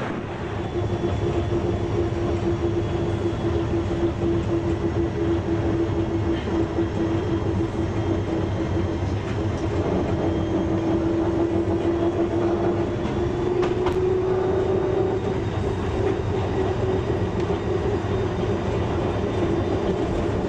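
Budapest tram running, heard from inside the passenger car: a steady rumble of wheels on the rails with a steady whine that rises slightly in pitch about two-thirds of the way through.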